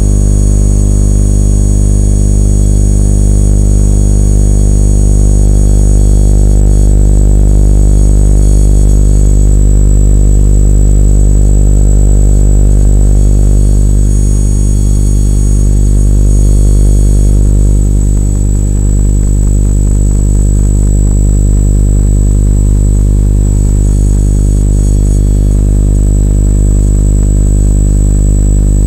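Electromagnetic field detector turning surrounding electromagnetic fields into sound: a loud, steady electrical buzz over a deep hum, with a thin high whine that shifts a few times.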